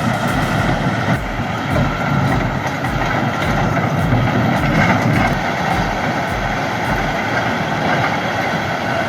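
Heavy crawler bulldozer working, its diesel engine running under load with the clatter of steel tracks, over a steady low beat about twice a second.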